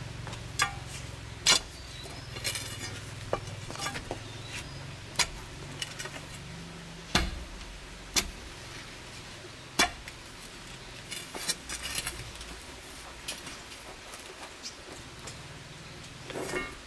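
Lumps of dry clay soil and stones being dug loose, lifted and dropped by hand, giving irregular sharp knocks and scrapes.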